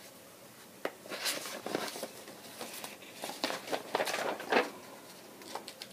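Handling noises: scattered light knocks and short rustles as items are moved about and set down.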